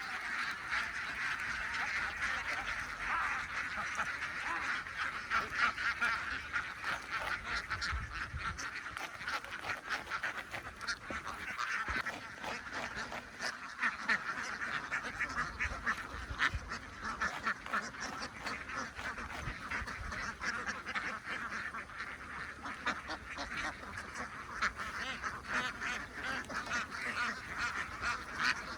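A large flock of domestic ducks quacking together, a dense, unbroken chorus of overlapping calls.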